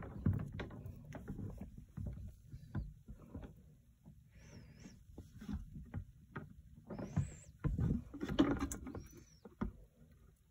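Water sloshing and splashing in a turtle tank as a hand reaches in and shifts the resin rock cave, with irregular knocks and scrapes of the ornament against the gravel and glass.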